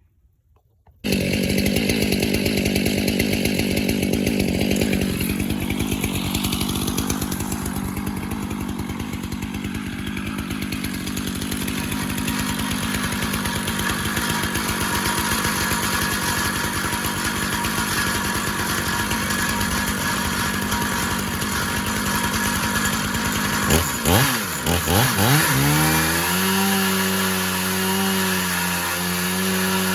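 Stihl MS 500i fuel-injected two-stroke chainsaw on a Granberg Alaskan chainsaw mill, running hard as it rips lengthwise through a cedar log. It starts about a second in. Near the end the engine note dips and swings, then holds a pitch that wavers.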